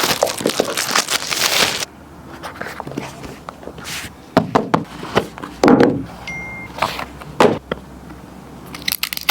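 Smartphone retail box and its packaging being handled and opened: a long loud rustle or slide of the packaging at the start, then scattered taps, knocks and rustles. A short steady high beep sounds a little past the middle.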